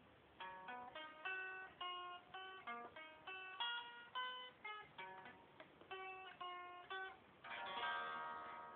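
Solo acoustic guitar played unplugged: a melody of single plucked notes, then a strummed chord near the end that rings out.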